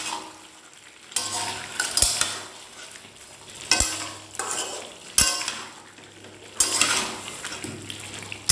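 Spatula scraping and turning spiced chicken and potatoes in an aluminium kadai, a sharp scrape every second or two over a steady sizzle of frying. The meat is being kosha-fried: stirred hard in oil and spices until the oil separates.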